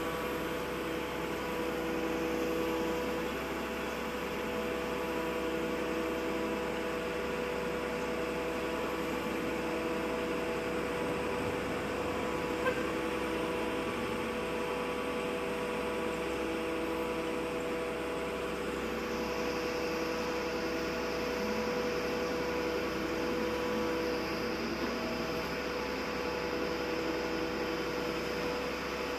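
Steady machine hum holding several constant tones, with no change in pitch or level.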